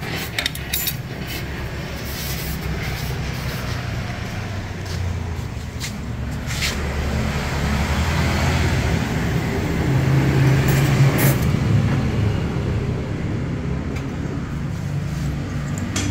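A motor vehicle engine running with a steady low rumble that grows louder about ten seconds in, with a few sharp clicks and knocks over it.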